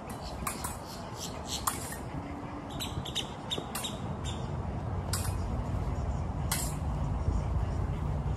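Épée blades clicking and clinking against each other in quick light contacts, a cluster in the first few seconds and two single clicks later, over a low rumble that grows louder in the second half.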